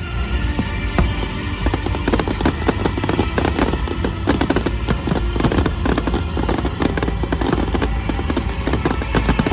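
Fireworks going off in quick succession, many bangs and crackles overlapping, growing denser after the first second or two.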